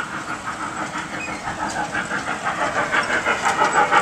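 Trackless amusement train running toward and past, with a fast, even rhythmic pulsing that grows louder as it comes near.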